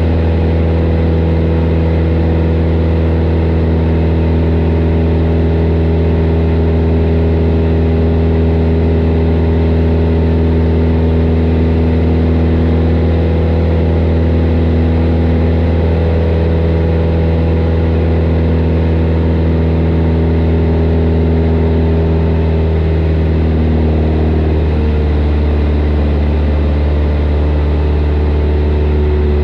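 Single-engine light aircraft's piston engine and propeller droning steadily, heard from inside the cockpit, with a slight shift in tone about three-quarters of the way through.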